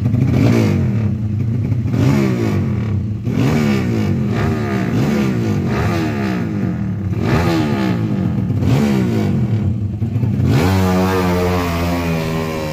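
Drag-racing motorcycle engines revving repeatedly, the pitch climbing and dropping with each blip of the throttle. About ten and a half seconds in, an engine climbs quickly and holds at a steady high pitch.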